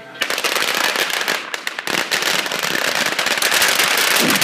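A string of firecrackers going off in rapid, continuous crackling, many sharp cracks a second. It starts abruptly just after the beginning.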